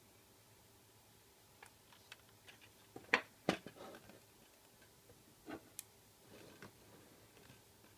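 Faint, scattered clicks and knocks from an LED flashlight's housing being taken apart by hand, with two louder knocks about three seconds in.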